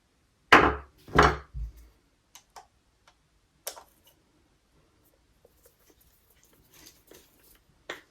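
Two loud knocks about half a second and a second in, then a few light clicks and taps: small parts of a motorcycle brake master cylinder being handled and set down on a workbench.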